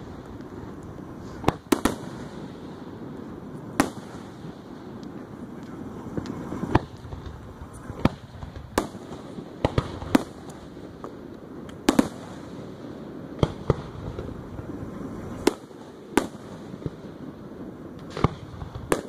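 Aerial firework shells bursting: more than a dozen sharp bangs at uneven gaps, some in quick pairs, over a steady background murmur.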